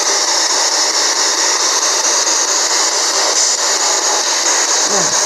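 Handheld spirit box radio sweeping through stations: a steady, loud hiss of radio static.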